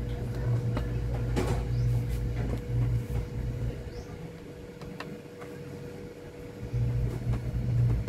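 A low hum drops away for a few seconds midway and comes back. Above it a faint steady tone runs throughout, the Hisense LED TV's high-pitch fault sound from its speakers, a sign of its supply voltage sagging. A few light clicks come as multimeter probes are set on the circuit board.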